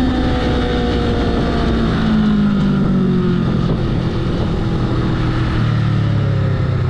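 Honda Rebel motorcycle engine running as the bike slows, its pitch falling gradually and settling lower and steadier near the end, with wind noise on the microphone.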